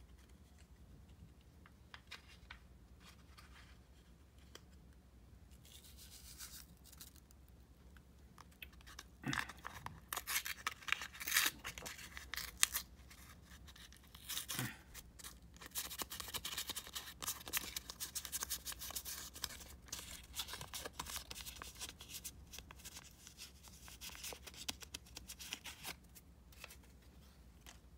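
A foil Sea-Monkeys sachet crinkling and rustling between the fingers as it is shaken and squeezed to empty its contents over the tank. It starts a few seconds in and runs as a long stretch of crackly crinkles, fading out just before the end.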